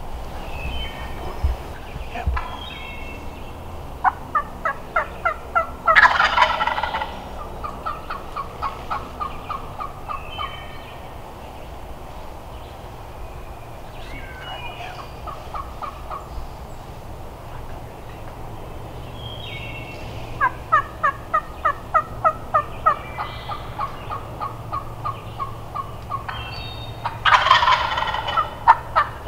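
Wild turkeys calling: runs of quick, evenly spaced yelps, and a loud rattling gobble about six seconds in and again near the end.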